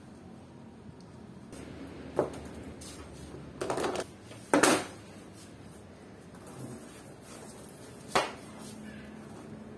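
Small hand tools and plastic spring clamps knocked and set down on a tabletop: a sharp knock about two seconds in, a short clatter and then the loudest knock around four to five seconds, and one more knock near the end.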